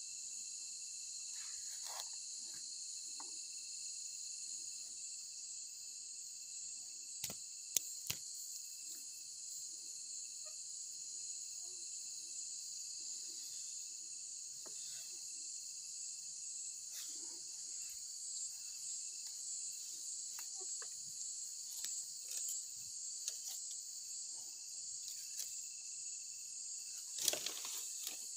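Steady high-pitched chorus of night insects trilling continuously. A few sharp clicks of handling come about a quarter of the way in, and a louder knock and rustle comes near the end.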